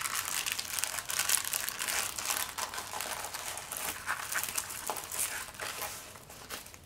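Paper wrapping crinkling and rustling as it is folded around a packaged kit, in rapid crackles that die away near the end.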